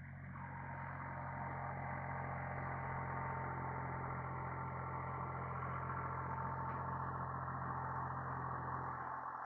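International Harvester 385 tractor's diesel engine running steadily while it drives a bush hog rotary cutter through pasture grass, with a steady high whine above the low engine sound. The sound swells over the first second, and the deepest part of the engine sound drops away near the end.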